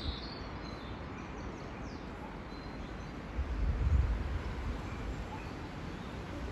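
Wind rumbling on the microphone over a steady outdoor hiss, swelling into a strong gust about halfway through, with a few birds chirping near the start.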